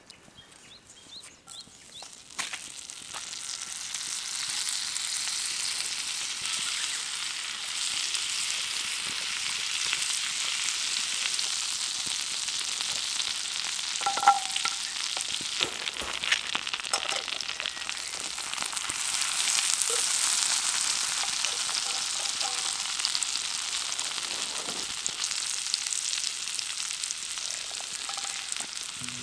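Food frying in hot oil in an iron pan over a campfire: a steady, high-pitched sizzle that builds up over the first few seconds and then holds, with scattered small pops and spits.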